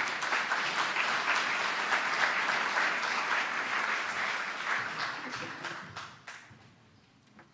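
Audience applause: many hands clapping together, thinning out and dying away about six seconds in.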